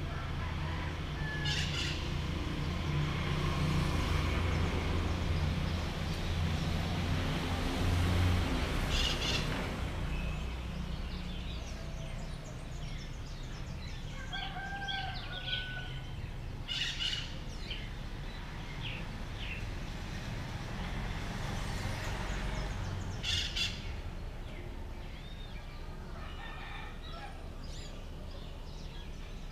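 Dawn birdsong: roosters crowing a few times at intervals, with smaller birds chirping between the crows, over a steady low rumble that is strongest in the first third.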